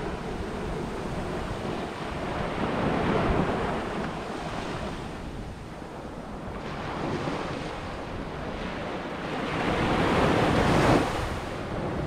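Sea surf breaking and washing up a sandy beach, swelling and ebbing in slow surges. The largest surge comes near the end and falls away suddenly.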